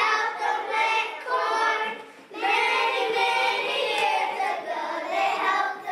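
A group of young children singing together in phrases, with a brief pause about two seconds in.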